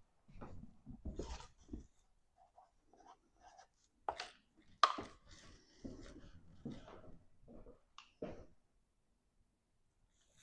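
Faint handling noises: soft knocks, clicks and rubbing, with two sharper clicks about four and five seconds in.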